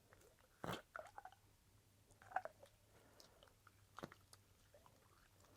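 Faint sticky noise putty being squished and pulled by hand: a few short, wet smacks and clicks as it sticks and peels away. The putty is far stickier than normal, which the owner puts down to heat damage.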